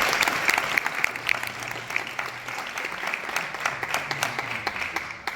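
Audience applauding, the clapping dying away gradually toward the end.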